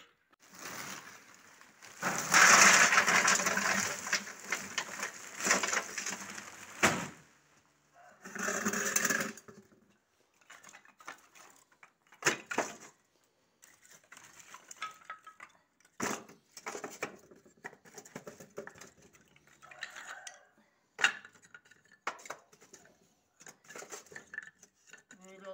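Split pine kindling sticks clattering into a metal stove bucket as they are loaded by hand. A dense clatter lasts about five seconds near the start, with a shorter one a little later, then single knocks every second or two as pieces are set in one at a time.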